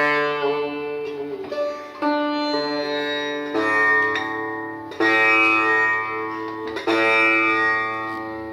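Background music on a plucked string instrument like a sitar, slow sustained notes each struck and left to ring.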